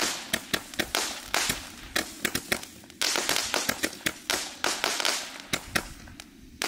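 168-shot mini gatling gun firework cake firing: a rapid, uneven string of sharp bangs, about four a second, over bursts of hissing, thinning out near the end.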